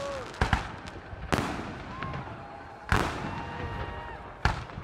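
Fireworks going off: a series of sharp bangs from shells bursting overhead, two in quick succession about half a second in and three more spaced across the rest.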